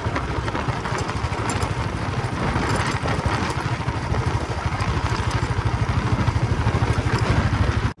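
A vehicle's engine running steadily with a low, rapid pulsing, heard from on board while travelling along a road, with a rushing haze of wind and road noise over it.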